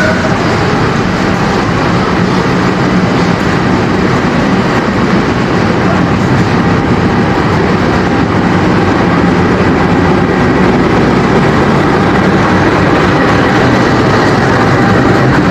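Diesel-electric locomotive running light along a station track, its engine a steady low drone that grows a little louder near the end.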